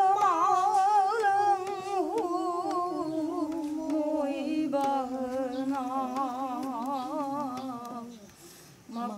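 Women's voices singing a slow Meitei Loipan devotional song, long wavering held notes that drift slowly lower in pitch. The singing fades out near the end and a new phrase begins just after.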